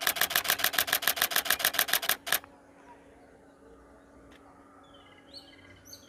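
Camera shutter firing in a rapid continuous burst, about ten clicks a second for a little over two seconds, then stopping. Faint bird chirps follow.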